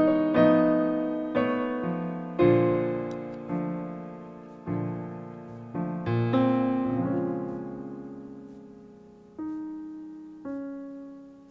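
Slow piano music: single notes and chords struck and left to ring, growing sparser, with the last notes fading away near the end.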